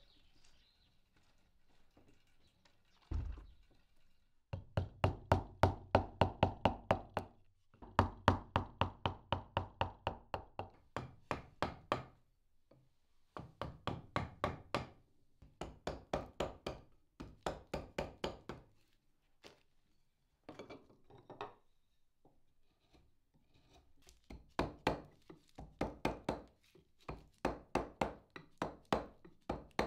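Mallet tapping a wood-carving gouge into laminated skateboard-deck plywood: quick runs of knocks, about four a second, each run lasting a few seconds with short pauses between. A single heavier thump comes about three seconds in, before the first run.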